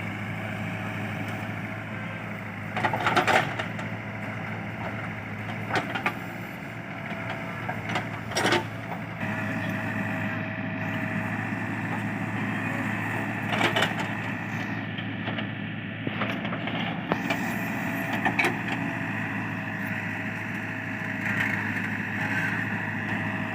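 Diesel engine of a JCB 3DX backhoe loader running steadily with a hydraulic whine. The whine and engine note rise about nine seconds in as the machine works under load. About six short knocks and thuds are heard as the machine loads soil.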